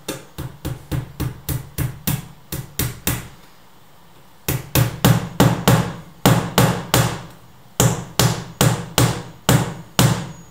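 Hammer blows at the edge of a door, a steady series of sharp strikes about three a second, each ringing briefly. A run of about a dozen blows stops after about three seconds, and after a pause a louder run of about twenty follows.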